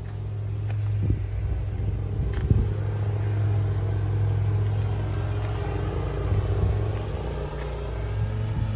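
An engine or motor running steadily with a low, even hum, with a few light knocks over it.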